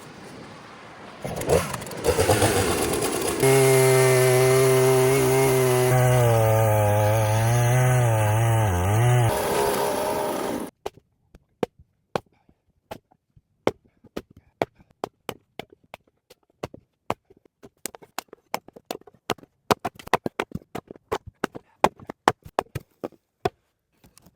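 A small motor runs steadily for about ten seconds, its pitch wavering for a few seconds, then stops abruptly. After that come irregular sharp cracks and clicks.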